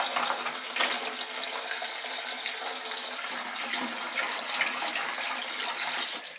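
Kitchen faucet running steadily into a glass bowl of water in the sink, the water splashing as a hand swishes vegetables through it.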